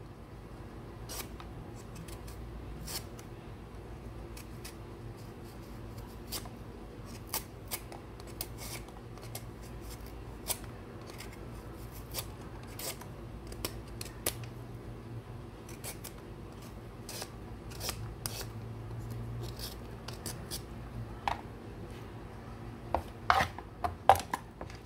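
Vegetable peeler scraping the skin off a squash over a wooden cutting board, in short scratchy strokes about once a second. A few louder knocks on the board near the end.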